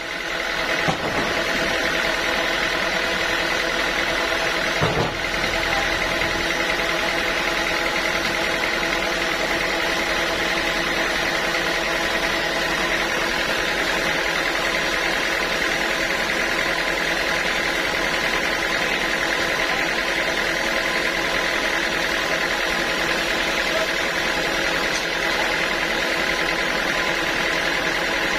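Sawmill saw running steadily through teak, a constant machine hum with a high whine above it. There is a brief knock about five seconds in.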